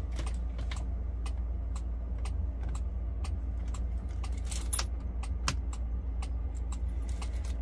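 Hazard flasher on a 2001 Ford F-350 clicking repeatedly, a few sharp clicks a second, over a steady low hum; the hazards are flashing because the truck's alarm has tripped.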